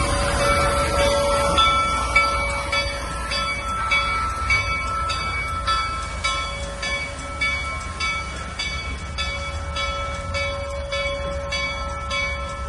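A train rumbles low and steady while a bell rings in an even rhythm, about two strikes a second.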